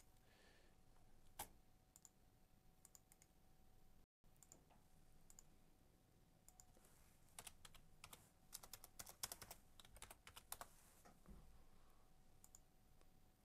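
Faint clicks of a computer keyboard and mouse, with a quick run of keystrokes in the second half.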